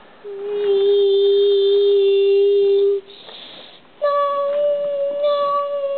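A voice humming two long, steady notes, the second higher and slightly wavering, with a short breathy hiss between them.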